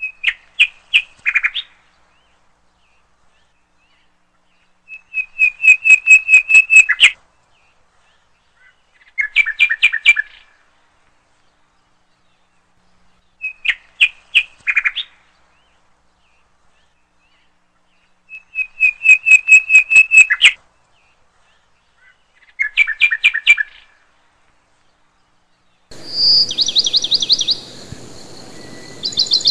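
Songbird song in short trilled phrases of rapid, high chirps every few seconds, with silence between them. The same sequence of phrases repeats as a loop. Near the end a different, shriller phrase comes over a background hiss.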